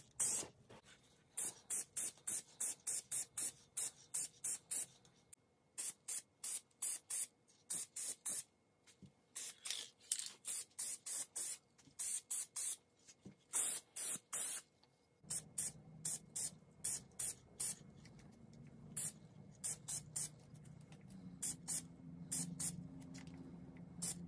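Aerosol spray-paint can sprayed in many short bursts, quick hisses several a second in runs with brief pauses, putting light coats of paint on fan parts. A faint low hum comes in about two-thirds of the way through.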